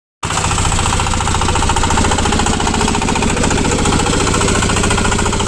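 A VST power tiller's single-cylinder diesel engine running steadily with a rapid, even chugging.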